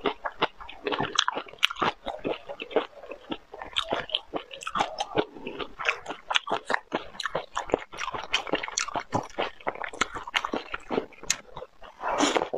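Close, crackling clicks and crunches of prawn shells being pulled apart by hand, with chewing and biting; the eating grows denser near the end.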